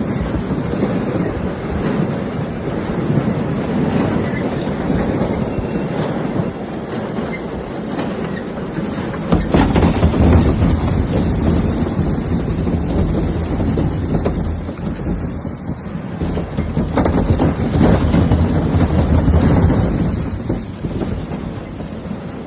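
Farm machinery running, with a steady engine hum and a rattling mechanical clatter. It swells louder about nine seconds in and again near the end.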